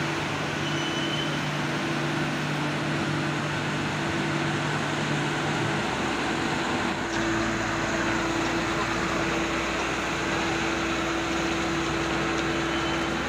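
Mitsubishi Fuso 220 6x4 truck's diesel engine running steadily as the truck moves slowly forward past the listener; about halfway through the note changes to a deeper rumble.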